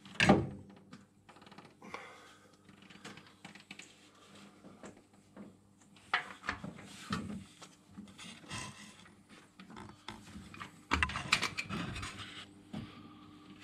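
Irregular clicks, knocks and short clatters of hand work on an engine: spark plug leads and a distributor cap being handled and fitted on a V8 that is not running. The sharpest knock comes just after the start, and there are busier bursts around six and eleven seconds in, over a faint steady hum.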